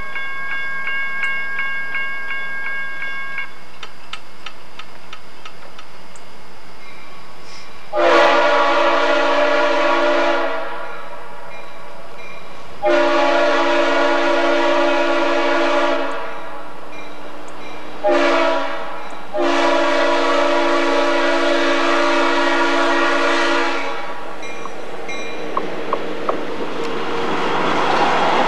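Kansas City Southern diesel locomotive's multi-note air horn sounding long, long, short, long, the standard warning for a grade crossing. The train's running noise then grows louder near the end as it approaches.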